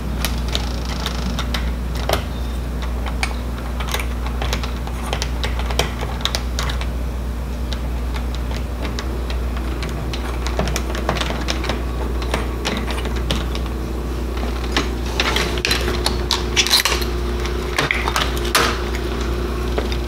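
Small metallic clicks and taps of a hand screwdriver backing screws out of an old deadbolt and doorknob set, with the clicks coming thicker near the end. A steady low hum runs underneath.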